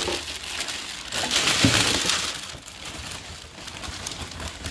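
Plastic packaging rustling and crinkling as it is pulled off the model plane's parts, loudest in the middle, with a single soft thump.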